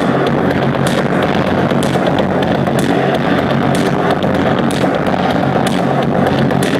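Loud live electronic music over a club sound system, recorded overdriven: a dense, noisy texture with a sharp click roughly once a second.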